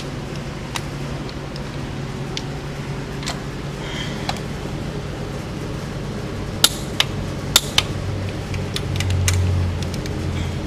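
Click-type torque wrench and ratchet working the exhaust manifold bolts of a Cummins ISX diesel, set to 44 ft-lb: light ticks, then a cluster of four sharp metallic clicks a little past the middle as bolts reach torque. A steady fan hum runs underneath, and a low hum swells for a second or two near the end.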